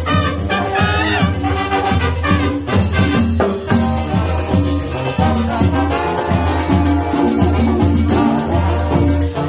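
A brass band playing Latin dance music, with horns over a steady bass and a shaker keeping the beat.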